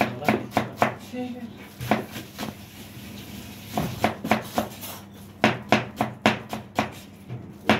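Kitchen knife chopping green onions on a wooden cutting board: a run of quick knocks, about three a second, thinning out briefly in the middle before picking up again.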